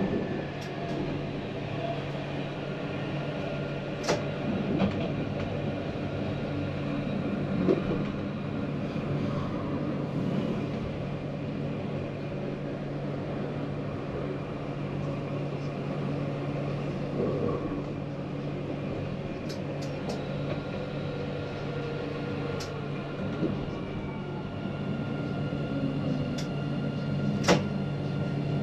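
Tram running along the line: a steady electric hum with higher whining tones that come and go, and a few sharp knocks, the loudest about four seconds in and near the end.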